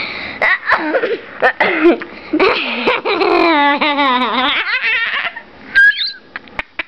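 A young girl laughing helplessly while being tickled: quick bursts of laughter that run into a long, high, wavering squeal of laughter in the middle. It dies away near the end with one short squeak.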